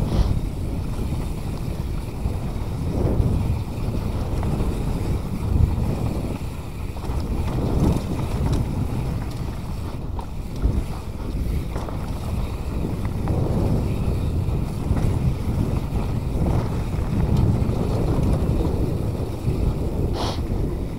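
Mountain bike riding fast down a dirt singletrack: a steady rumble of knobby tyres on the trail mixed with wind buffeting the action camera's microphone, swelling and easing with the terrain, with a few short clatters from the bike over bumps.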